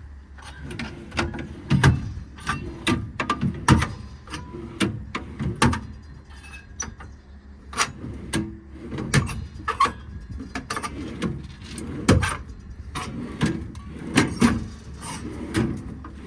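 American Eagle twist-lock tool drawers in a service-body compartment being worked open and shut one after another: an irregular string of sharp clicks and knocks.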